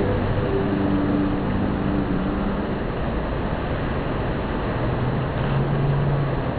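Wave-pool water churning and breaking in a steady rush, with a couple of faint held low tones under it.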